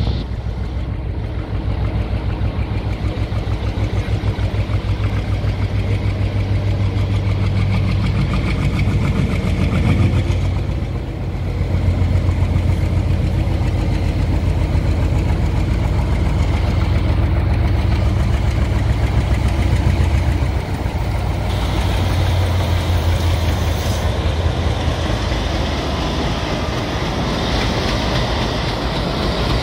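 Diesel locomotive's engine running with a low, steady pulsing drone as it hauls a freight train at slow speed.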